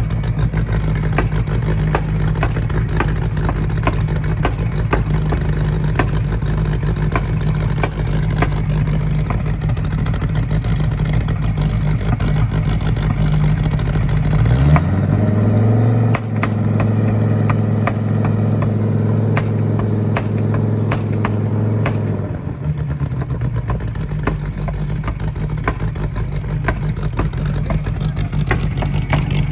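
The 9.0-litre stroker V10 of a track-only Gen IV Dodge Viper ACR-X idling. About halfway through, the revs climb to a raised engine speed, hold there for several seconds, then drop back to idle.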